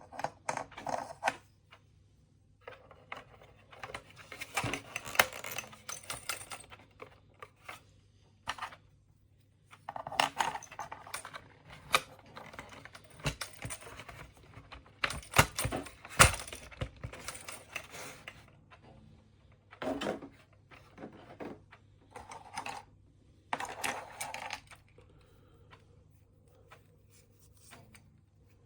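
Small hard pieces clicking and rattling in irregular bursts of a second or two, several times over: the marble-powered alarm clock and its marbles being handled.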